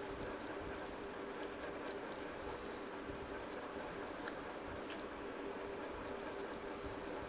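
Fingers kneading rice and curry gravy on a steel plate: soft, wet squishing with scattered faint clicks. A steady low hum runs underneath.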